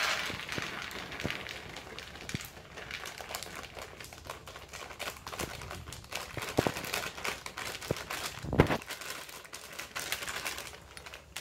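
Plastic packet of milk chocolate chips crinkling as it is squeezed and shaken empty, with the chips falling into a frying pan in many small clicks. A louder knock comes about eight seconds in.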